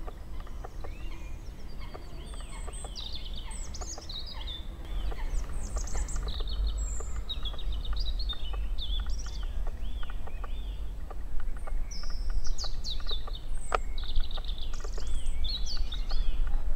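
Several songbirds singing in a woodland in spring, phrases overlapping, some with quick runs of repeated rising-and-falling notes. Underneath is a steady low rumble with scattered faint clicks.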